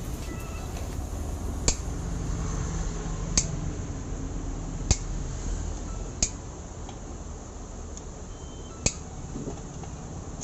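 Metal tools and engine parts clinking as they are handled: five sharp clicks, spaced a second or two apart, over a low steady hum.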